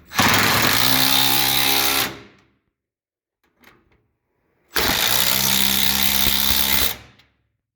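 Impact wrench running in two bursts of about two seconds each, a few seconds apart, tightening two freeze plugs.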